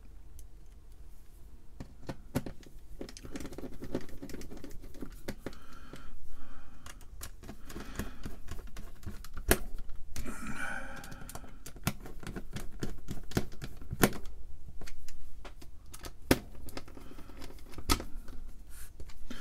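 Scattered sharp clicks, taps and scrapes of small metal screws and a metal power-supply mounting plate being handled as the screws are put in and tightened.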